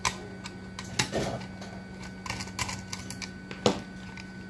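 Irregular light clicks and knocks of a screwdriver and hands working on a scanner's circuit board on a workbench, with one sharper knock near the end, over a faint steady hum.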